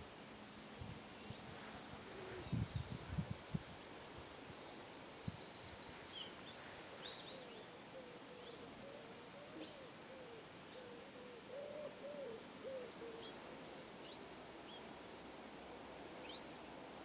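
Birds calling at dawn: a low call is repeated over and over through the middle stretch, with scattered short high chirps from small birds. A few low thumps come about two to three seconds in.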